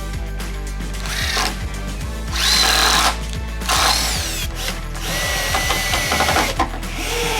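Cordless power driver sinking screws into the wooden frame in a series of short whining runs, some rising in pitch as the motor spins up. Background music plays underneath.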